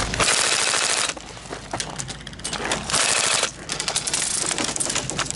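Airsoft electric gun (AEG) firing on full auto: a rattling burst of about a second, then a shorter half-second burst about three seconds in.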